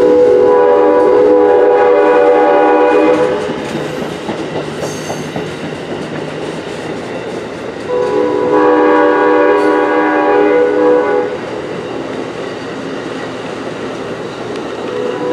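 Railroad air horn sounding long chord blasts: one lasting until about 3 s in, another from about 8 to 11 s, and a third starting near the end. Between the blasts, passenger cars rumble and clatter past on the rails.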